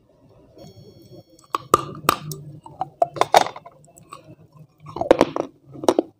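Close-miked biting and crunchy chewing of a crumbly white block. Sharp crunches start about one and a half seconds in and come in clusters, again around three seconds and near the end.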